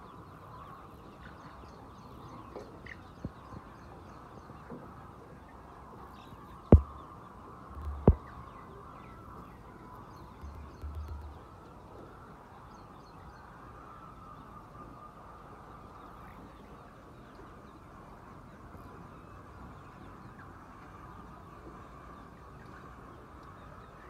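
A flock of chickens clucking in a steady, crowded murmur, with scattered higher calls. Two sharp knocks, about a second and a half apart, a little before the middle, are the loudest sounds.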